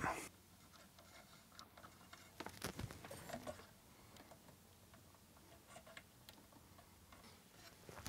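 Near silence with a few faint, light ticks and taps, mostly between about two and three and a half seconds in: small parts and tools being handled on a workbench.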